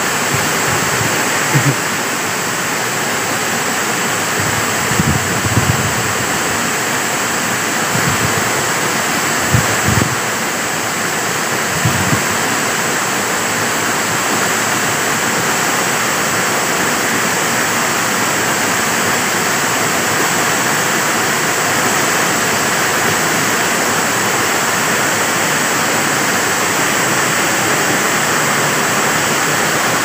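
Waterfall crashing into a pool: a steady, loud rush of falling water, with a few short low thumps in the first dozen seconds.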